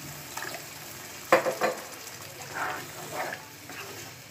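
Chickpeas in spiced masala sizzling in a pan with a cup of water just added, stirred with a spatula. Irregular scraping strokes of the spatula in the pan, the loudest a sharp hit about a second and a half in.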